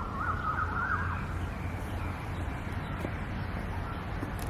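Steady outdoor background noise with a low hum, and a brief warbling call that zigzags up and down in pitch in the first second.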